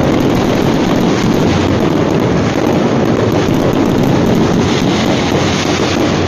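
Fireworks going off in a dense, continuous barrage, the overlapping bursts and crackling merging into a steady loud rumble.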